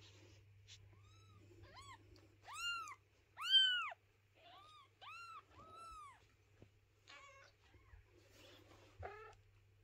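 Newborn kittens mewing: a run of short, high-pitched cries, each rising and falling in pitch, the loudest about three and a half seconds in, with a few weaker calls near the end.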